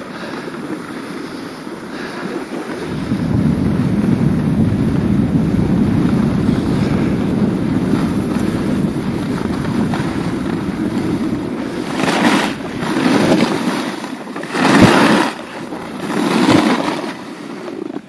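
Wind buffeting the microphone of a skier going down a groomed piste, swelling loud about three seconds in. Near the end come four hissing scrapes of the skis' edges on the snow through the turns.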